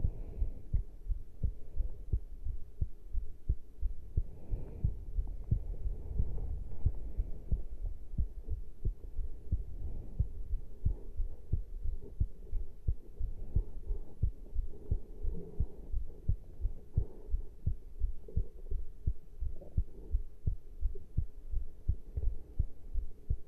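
A human heartbeat heard close at the chest after caffeine intake: a steady rhythm of low thumps.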